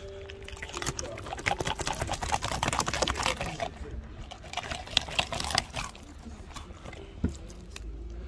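Fillet knife cutting a pike fillet off the backbone: a fast run of crackling clicks as the blade works along the ribs, thinning out near the end.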